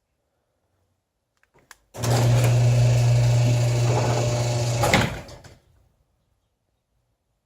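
An electric motor runs with a steady low hum and whir for about three seconds. It starts abruptly after a couple of faint clicks and stops with a click.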